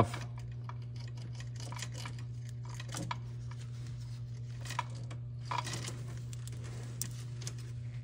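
Scattered soft metallic clicks and light rattles of timing chain links being handled as the old Mercedes OM642 timing chain is drawn out over the sprockets, over a steady low hum.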